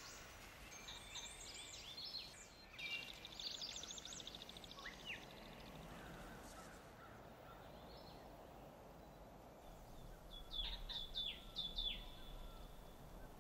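Faint outdoor ambience with songbirds: scattered chirps and short whistles that slide downward, a rapid trill about three seconds in, and a cluster of sharp falling calls near the end, over a soft steady hiss.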